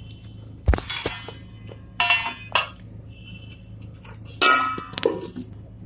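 Stainless steel plate and dishes clinking and clanking as they are handled: a few sharp metallic knocks, each with a brief ring, the loudest near the end.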